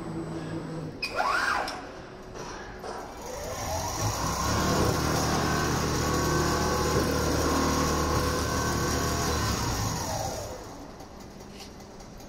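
Richpeace CNC template sewing machine stitching: its sewing motor winds up in pitch, runs steadily at speed for about six seconds, then winds down near the end. A brief rising whine comes about a second in.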